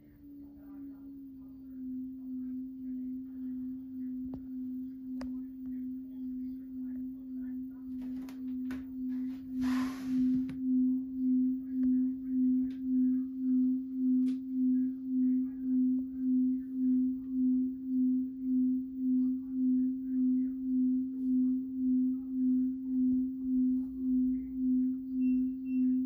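Front-loading washing machine running its rinse cycle: a steady low hum that pulses about twice a second, growing louder about ten seconds in, with a short hiss around the same moment.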